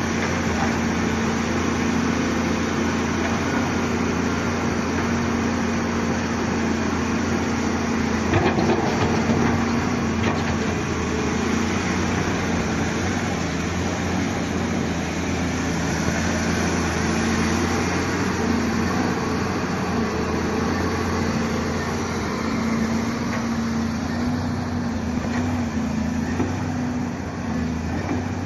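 Volvo EC290 crawler excavator's diesel engine running steadily at an even pitch.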